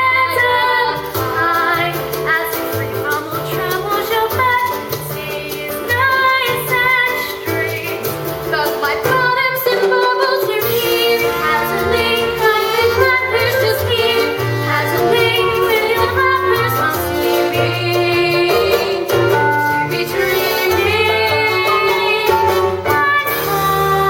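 Song from a stage musical: voices singing over instrumental accompaniment, with a bass line moving in a steady rhythm. The bass drops out briefly about ten seconds in.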